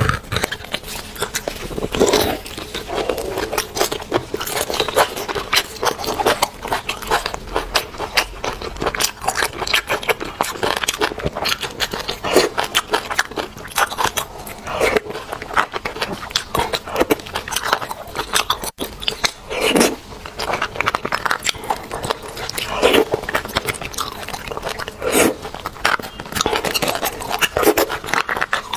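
Close-miked eating of roasted beef bone marrow: wet chewing and mouth clicks, with a small metal spoon scraping and clicking against the inside of the bone.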